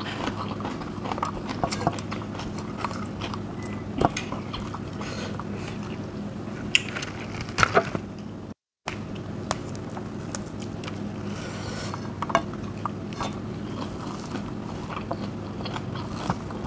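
Close-up chewing and biting of food, with scattered sharp crunchy clicks, the loudest a few seconds before a brief dropout about halfway through. A steady low hum runs underneath.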